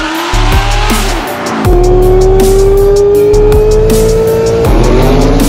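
Electronic music with a heavy bass beat, mixed with car sounds. A long tone rises slowly in pitch from about two seconds in and breaks off near the end.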